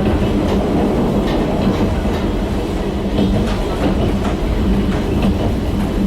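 Running sound heard inside a JNR 70-series electric car, whose nose-suspended (tsurikake) MT40A traction motors and gears give a steady hum under the wheel rumble. Rail-joint clicks come at irregular intervals, with the rattle of the car's gangway door and window glass.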